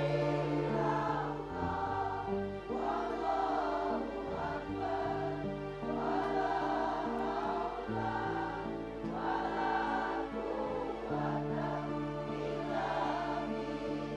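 A group of voices singing an Islamic devotional chant in unison, in long phrases over held low accompanying notes that change every few seconds.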